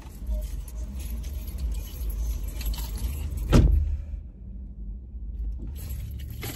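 A car engine running steadily, heard from inside the cabin, with keys jangling and a single sharp thump about three and a half seconds in.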